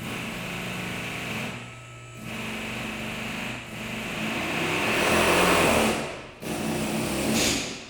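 A power tool in an auto repair shop, run in four short bursts of a second or two each, stopping briefly between them.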